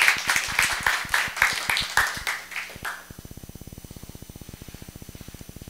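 Audience applauding: a round of clapping that dies away about three seconds in, leaving a faint low hum.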